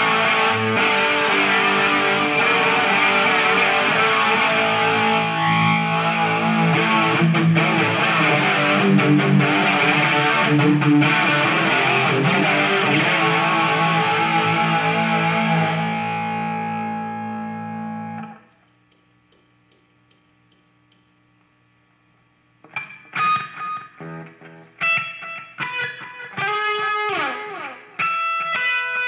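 Ibanez electric guitar played through a Marshall MG100FX half stack, first in dense distorted chords and runs that ring out and cut off about two-thirds of the way through. A few seconds of faint amp hum follow, then separate picked notes, some of them bent.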